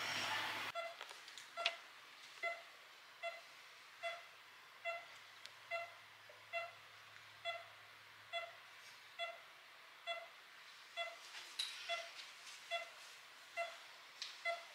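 Electronic beeping from hospital ward equipment: a single mid-pitched beep repeating evenly, a little faster than once a second (about seventy a minute, a pulse-like rate). There are a few faint rustles and ticks between the beeps.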